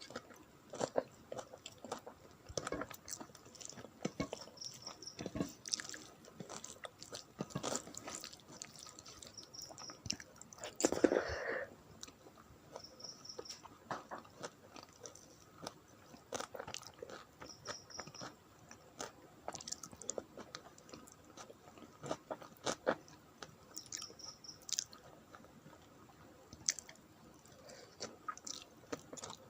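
Close-up chewing and mouth sounds of a person eating rice with dal and curries: soft wet smacks and small clicks scattered irregularly, with one louder, longer mouth sound about eleven seconds in.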